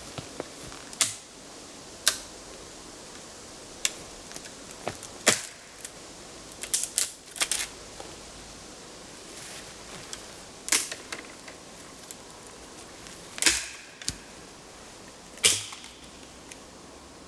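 Dry wood snapping in sharp single cracks, about a dozen at irregular intervals with a quick cluster about seven seconds in.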